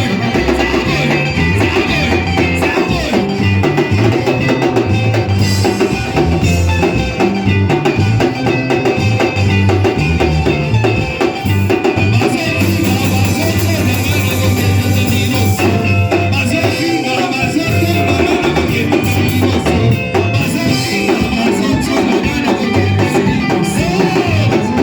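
Live band worship music with electric guitar, bass and drum kit playing a steady, upbeat dance rhythm.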